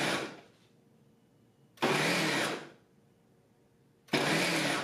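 Ninja 1200-watt blender and food processor motor pulsing its chopping blade through red onion pieces on the automatic chop program. It runs in bursts of under a second, about two and a half seconds apart, with near silence between them.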